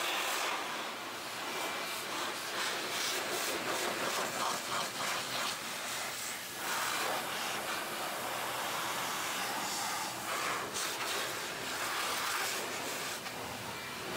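Steady rushing hiss of moving air that swells and fades in patches.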